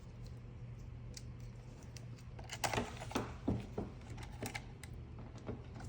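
Light scattered clicks and taps of small parts and tools being handled on an RC truck's drivetrain, bunched in the middle, over a low steady hum.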